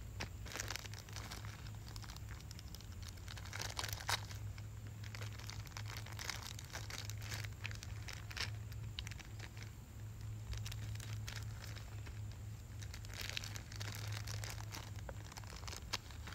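Clear plastic blind-bag packaging crinkling and rustling as it is handled and opened, in irregular bursts of crackle, with a sharper crackle about four seconds in.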